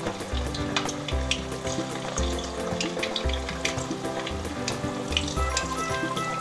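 Flour-coated chicken thigh pieces for karaage deep-frying in hot oil: a steady sizzle with many small crackling pops, as more pieces are lowered into the pan.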